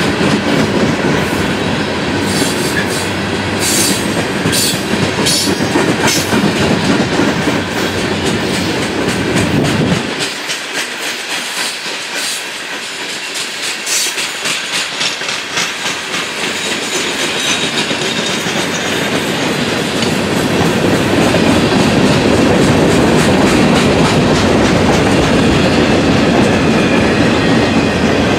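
Freight train hopper cars rolling past, steel wheels clicking over rail joints above a steady rumble. The low rumble falls away suddenly about ten seconds in and builds back up over the next several seconds.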